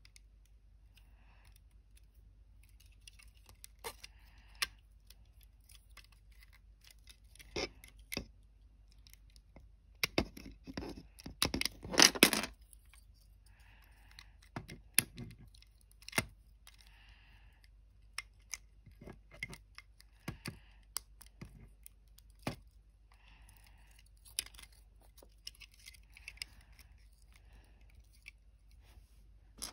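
Plastic LEGO bricks being handled and pressed together: scattered light clicks and taps. About a third of the way in comes a burst of close-spaced clattering, the loudest part.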